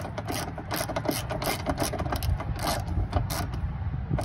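Hand ratchet wrench clicking in quick, irregular runs as it backs out a 10 mm bolt on the radiator hold-down bracket.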